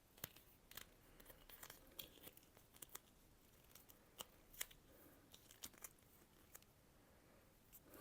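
Gaffer tape being peeled off the roll and wrapped around a knife handle: faint, irregular crackles and sharp ticks.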